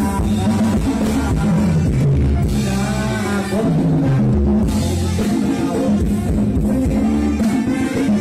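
A live band playing Thai retro ramwong dance music through a PA, with drum kit, bass and guitar and a singer's voice.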